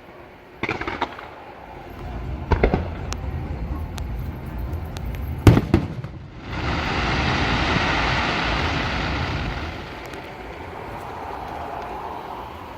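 Fireworks display: aerial shells bursting in a few sharp bangs, the loudest about five and a half seconds in, followed by a few seconds of dense hissing crackle that slowly fades.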